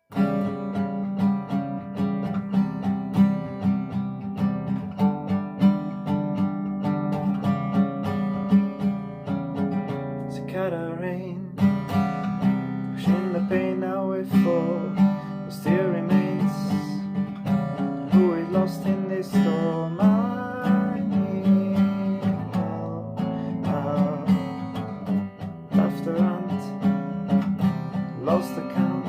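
Acoustic guitar played fingerstyle, with a singing voice coming in about ten seconds in.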